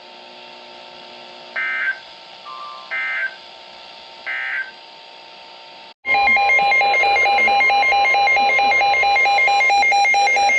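Emergency Alert System tones on a weather-radio broadcast. First come three short digital data bursts about 1.4 s apart, the end-of-message code that closes a warning. About six seconds in, a loud pulsing electronic alert tone starts, the alarm that announces the next warning.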